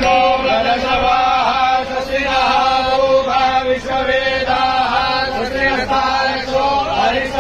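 Hindu puja mantras chanted by voice on one steady pitch, with syllables rising and falling above the held note.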